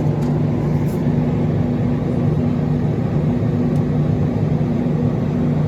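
Steady low mechanical hum of supermarket freezer cases, with a constant low drone.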